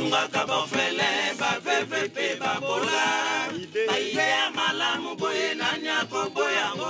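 Music: several male voices singing or chanting together over sharp, repeated percussion.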